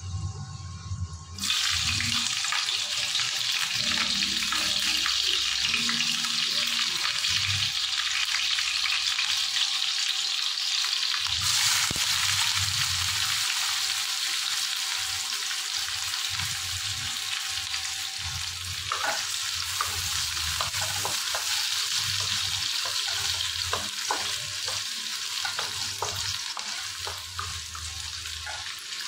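Chopped onion and green chillies sizzling loudly in hot oil in a non-stick kadai. The sizzle jumps up about a second in as they go into the oil, and again around eleven seconds. From about two-thirds of the way through, a wooden spatula stirs them, knocking and scraping against the pan.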